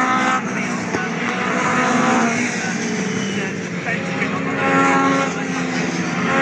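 Several motorcycle-engined Legends race cars running hard through a bend, their engine notes overlapping and rising and falling as the cars pass.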